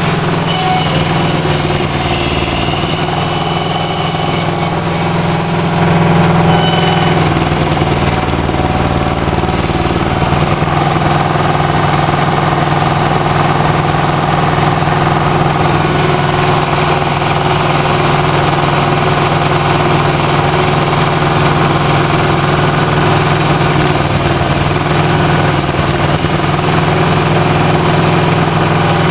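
Aquatic weed harvester's engine running steadily, a loud, even mechanical drone while the harvester drives its pickup conveyor through floating hydrilla. It gets a little louder about six seconds in.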